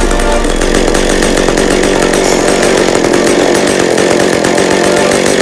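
McCulloch two-stroke chainsaw running steadily on a cold start.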